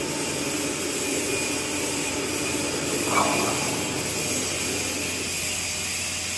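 Tractor-operated straw baler running steadily, an even mechanical drone with a brief extra sound about three seconds in.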